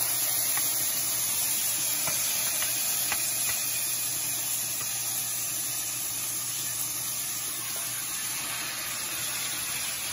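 Seasoned goat liver sizzling in hot oil in a pot: a steady frying hiss that eases slightly over time, with a few faint clicks in the first few seconds.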